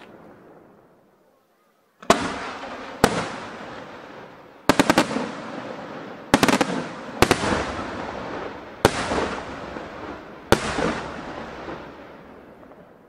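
Aerial firework shells bursting overhead, starting about two seconds in: a string of sharp bangs, some single and some in quick clusters of several cracks, each followed by a rumbling echo that fades away.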